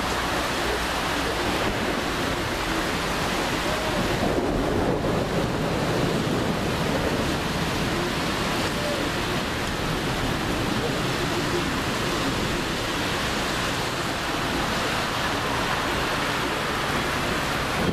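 Steady rush of heavy thunderstorm rain and wind.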